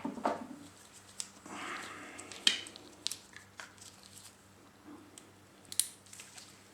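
Small plastic parts of a Karcher pressure washer's control head being handled during reassembly: scattered light clicks and taps with some soft rustling.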